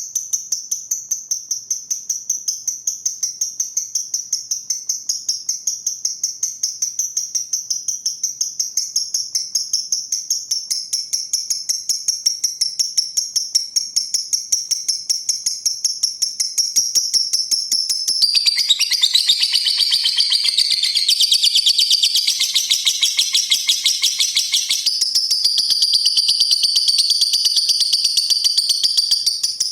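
Pastel green lovebird singing: a steady run of rapid, high-pitched ticking chirps, about four a second (the 'ngetik'), that breaks a little past halfway into a louder, fuller chatter lasting about six seconds (the 'ngekek') before going back to chirping.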